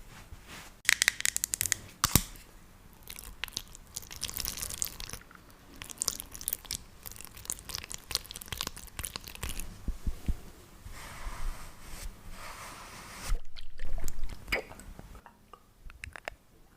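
Close-miked ASMR handling of skincare products: irregular crackles, clicks and crinkles, loudest about a second in and again near the end.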